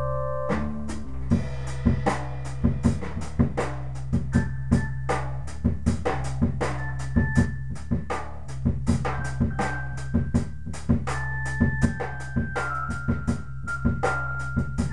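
Live jam music: a drum kit comes in about half a second in and plays a steady groove of snare, bass drum and cymbal hits, over held keyboard chords that sound organ-like and a steady low bass line.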